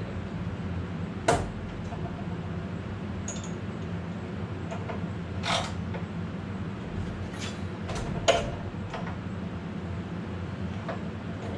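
Scattered knocks and clicks of metal tool and saw parts being handled, a few seconds apart, over a steady low hum.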